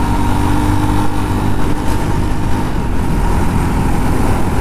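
Jawa Perak's 334 cc single-cylinder engine running steadily while the bike is ridden on the road, under a steady rush of wind and road noise.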